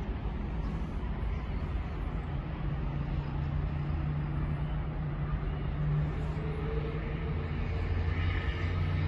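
Steady low rumble of road traffic, with a constant low hum.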